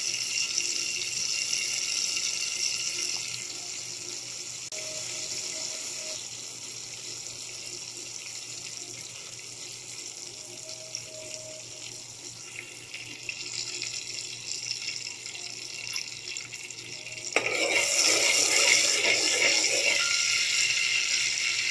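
Butter and oil sizzling and bubbling as the butter melts and foams in a steel pot. It thins for a while, then about seventeen seconds in grows louder as a spoon stirs through the hot fat.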